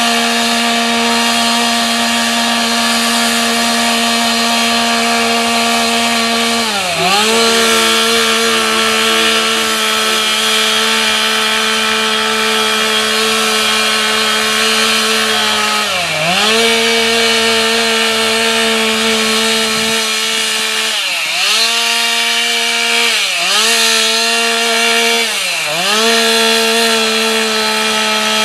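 Two-stroke carving chainsaw running at high revs as it cuts into a wooden log. Its pitch dips briefly and recovers about five times, where the engine bogs under the load of the cut.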